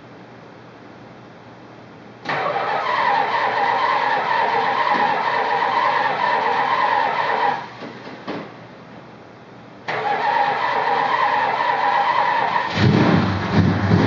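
1969 Dodge Super Bee V8 being cranked over on its Chrysler gear-reduction starter, with a steady whine in two long spells of about five and three seconds; near the end the engine catches and fires unevenly. The long cranking comes after the car has sat for a month, with a carburettor that the owner says needs rebuilding.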